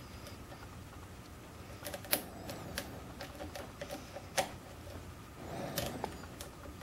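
Faint, scattered sharp clicks of a steel lock pick and tension wrench working the pin tumblers inside a KABA Peaks key-in-knob cylinder, about six ticks spread irregularly, the loudest about two and four seconds in, with a brief soft rustle near the end.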